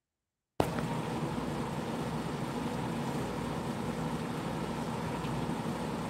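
Dead silence for just over half a second, then the sound cuts in abruptly with a click. A steady low hum with hiss follows, unchanging.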